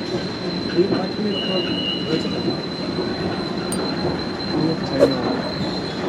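Passenger lift travelling between floors, its machinery giving a steady rumble with a thin high whine over it; a short higher tone sounds about a second in.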